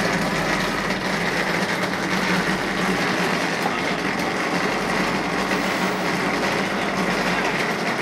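Electric automatic wall rendering machine running steadily, a continuous mechanical hum with a high whine as its carriage works up the wall.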